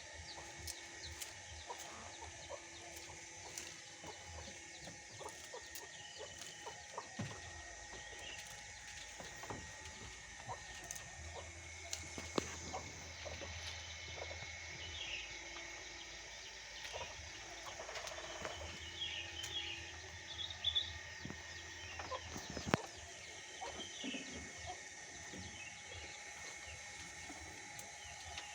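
Faint bird calls, short chirps scattered through the stretch and clustered about two-thirds of the way in, with many small clicks over a steady background.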